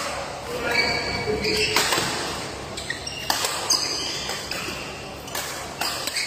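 Badminton rackets striking a shuttlecock in a rally, about five sharp cracks a second or two apart that echo in the hall. Between the hits, court shoes squeak on the mat.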